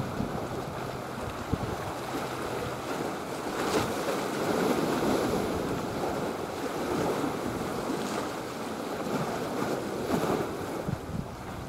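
Wind buffeting the microphone over choppy sea water, a steady rushing noise with no engine tone that swells a little about four to five seconds in.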